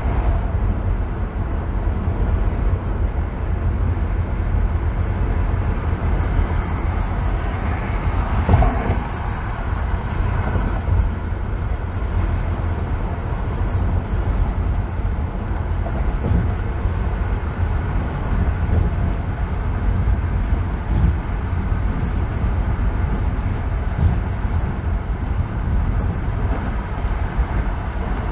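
Car driving on a freeway: a steady low rumble of tyres and engine, with one brief louder bump about eight and a half seconds in.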